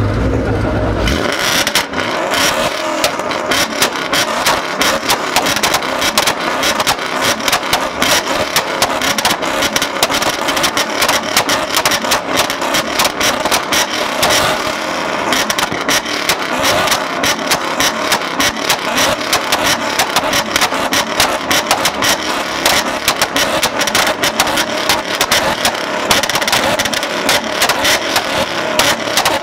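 Ford Mustang GT V8 engines held against a two-step launch limiter. After about a second of steady running, the exhausts break into rapid, continuous popping and crackling that does not let up.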